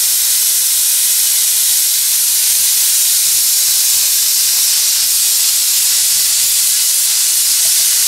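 Pop-off safety valve on a fire-tube steam boiler blowing off steam in a steady, loud hiss. It has lifted at its 100-pound setting and is venting excess boiler pressure.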